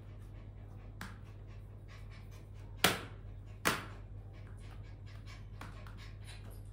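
Two sharp knocks less than a second apart near the middle, with a softer knock about a second in, over faint irregular ticking and a steady low hum.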